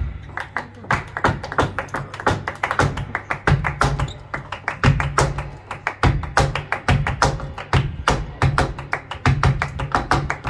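Flamenco palmas and footwork: sharp hand claps and heel strikes from a dancer and seated clapper in a fast, even rhythm, over low pulsing tones.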